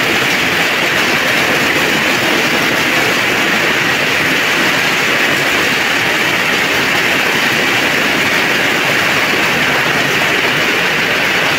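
Heavy downpour of rain, a dense, steady hiss.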